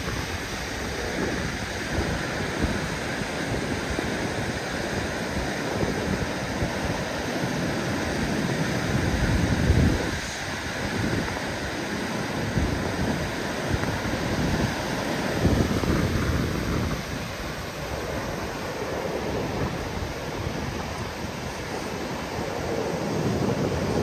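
Caspian Sea surf breaking and washing up a flat sandy beach in a continuous wash. Wind buffets the microphone in gusts, strongest about ten seconds in and again a few seconds later.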